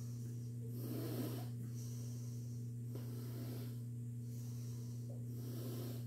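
A person breathing slowly and audibly, breaths every couple of seconds with the strongest about a second in, over a steady low hum.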